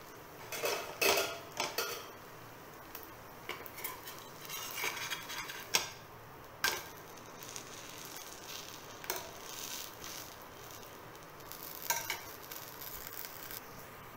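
A perforated metal spatula scraping and clinking against a black iron frying pan in a run of short, irregular scrapes and knocks while a suji cheela is turned and lifted out, with a faint sizzle of the hot pan beneath.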